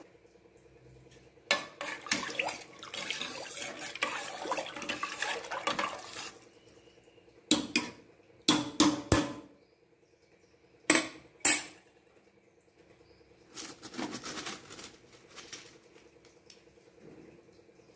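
A steel spoon stirring watery spice-and-chickpea mix in an aluminium pressure cooker pot, sloshing and scraping. Several sharp clinks of the spoon striking the pot come in the middle.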